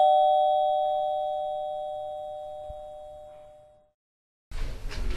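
Two-tone ding-dong doorbell chime ringing out, its higher and lower notes fading away over about four seconds. After a brief silence, noise of a door being handled starts near the end.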